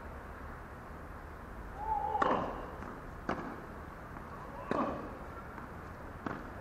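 Tennis rally on a hard court: four sharp knocks of a tennis ball, racket hits and bounces, spaced a second or more apart. A brief squeak comes just before the first.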